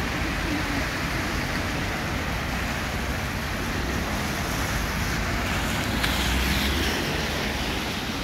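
Steady hiss of heavy rain mixed with car tyres on a wet road. It swells about six seconds in as a vehicle passes.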